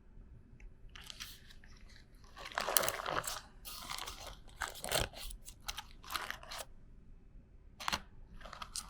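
Parchment cooking sheet crinkling and crackling in irregular handfuls as it is handled around the steamed chicken-and-vegetable parcel.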